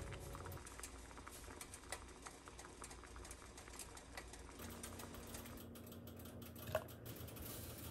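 Faint, irregular light clicks and taps, several a second, with one louder clink with a short ring near the end.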